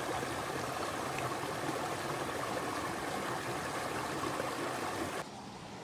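A creek running steadily over rocks, cutting off suddenly near the end.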